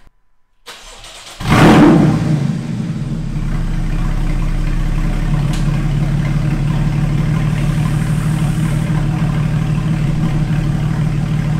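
Straight-piped Porsche 981 Cayman S flat-six, its resonators removed, cold-starting: a short crank, then it catches about a second and a half in with a loud flare of revs. It then settles into a steady, loud idle.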